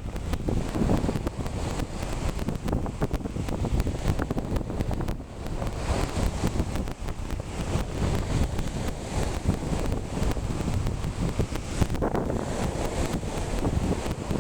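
Waves breaking and washing on the shore of a rough sea stirred up by a strong north wind, with wind buffeting the microphone in gusts.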